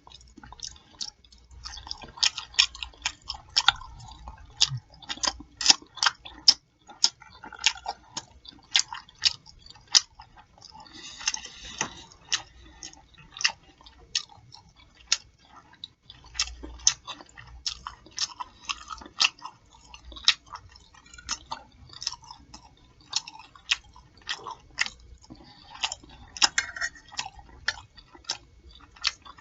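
Close-miked chewing and lip smacking from a person eating pork chops: many sharp smacking clicks, a couple a second, at an irregular rhythm.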